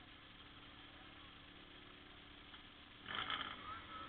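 Faint steady engine hum, with a short, louder burst of noise about three seconds in.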